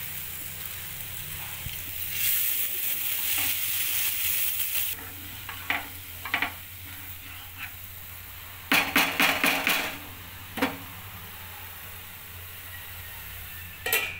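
Masala frying in a nonstick pan: a loud sizzle for a few seconds, then a wooden spatula stirring and scraping the pan in a quick run of strokes around the middle. A metal lid clinks down on the pan near the end, over a steady low hum.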